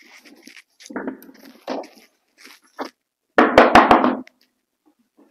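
A short clatter at a wooden door about three and a half seconds in, with three heavy knocks in quick succession. Softer scuffing sounds come before it.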